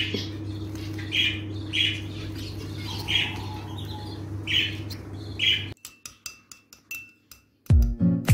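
Small bird chirping: about six short, high chirps in five seconds over a steady low hum. The chirps stop about six seconds in, leaving near silence with a few faint clicks, and music starts near the end.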